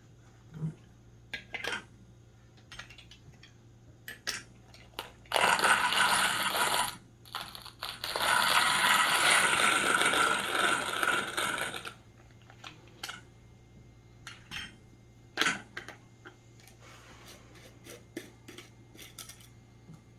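Coffee beans poured into a manual coffee grinder's hopper in two rattling pours, with scattered clicks and clinks of the grinder being handled before and after.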